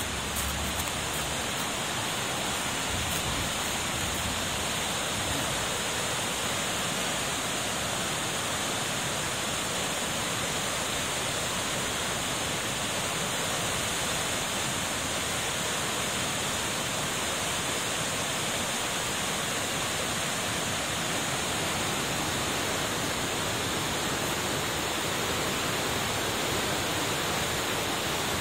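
Swollen, muddy floodwater after heavy rain, rushing and churning through whitewater past bridge piers in a steady, even noise.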